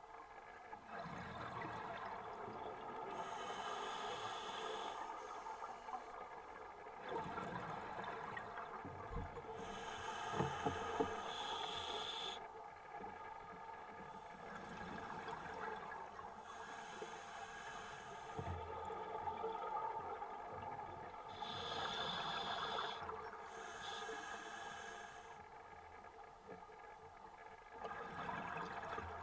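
Scuba diver breathing through a regulator: a hissing breath repeats every several seconds, with quieter bubbly stretches between.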